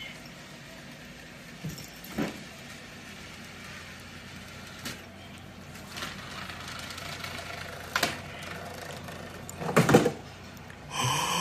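A model train running on its layout track with a steady low hum, broken by scattered knocks and thumps as a cat steps about on the diorama and paws at the scenery, the loudest a quick cluster of thumps about ten seconds in. A short pitched sound comes at the very end.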